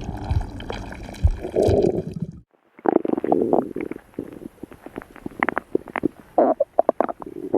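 Stomach growling and gurgling in irregular squelching bursts. It breaks off briefly about two and a half seconds in, then goes on as a run of quick bubbly pops and gurgles.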